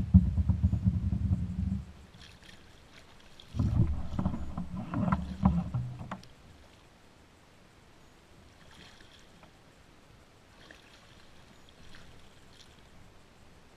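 Low rumbling and clattering from the kayak and the fishing gear being handled, in two spells: the first stops about two seconds in, the second runs from about three and a half to six seconds. Afterwards there are only faint soft sounds, perhaps water against the hull.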